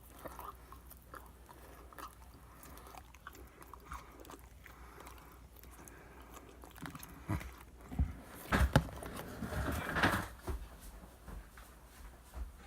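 Close-up mouth sounds of someone eating: quiet chewing with small clicks and smacks, growing louder in a cluster of bites and chews from about seven to ten seconds in.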